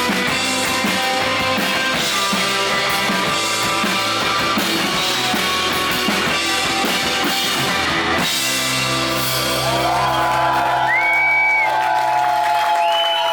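Rock band playing live, with drum kit and guitars, recorded in the hall. About eight seconds in, the drums stop and held guitar chords ring on, with high sliding tones coming in near the end.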